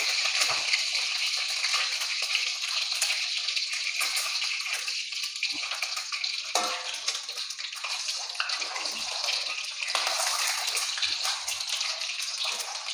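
Hot cooking oil sizzling and crackling steadily around peeled hard-boiled eggs frying in a wok as their outsides brown.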